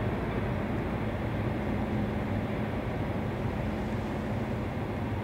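Container freight train rolling past across the water, a steady rumble of wagons on the rails with a low hum, mixed with cars passing on the road.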